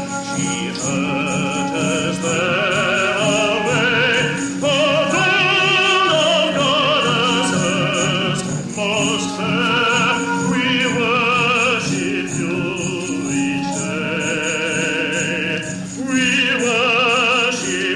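A trained operatic voice singing a slow song with wide vibrato on long held notes, over a steady instrumental accompaniment.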